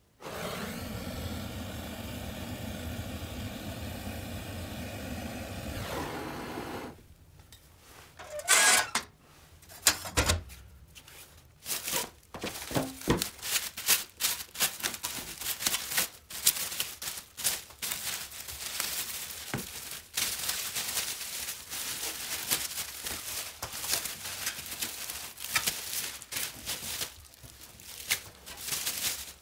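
Clear plastic stretch wrap crinkling and tearing as it is peeled off a freshly painted moped frame. A steady mechanical hum runs for about the first seven seconds and then cuts off, followed by a couple of sharp knocks.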